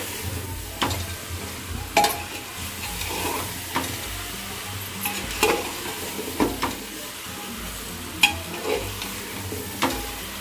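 A metal spatula scraping and knocking against the inside of an aluminium pressure cooker as potato and pointed gourd pieces are stirred into fried masala, with a steady sizzle of the vegetables frying in oil underneath. The knocks come irregularly, about every one to two seconds.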